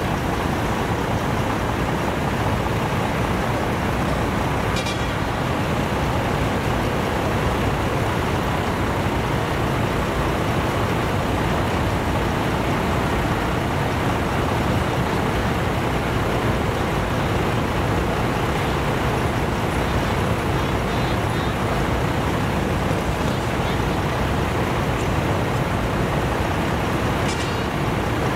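Diesel engines of parked decorated trucks idling together in a steady, dense rumble, with two brief high-pitched chirps, one about five seconds in and one near the end.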